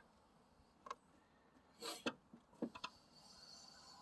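A few light clicks and taps of hand work on engine parts, with a short scuff about two seconds in and a quick run of three or four clicks just under three seconds in.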